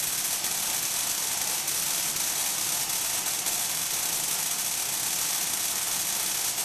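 Tesla coil discharging a plasma arc between two electrodes submerged in water: a steady, loud hissing crackle, brightest in the high range.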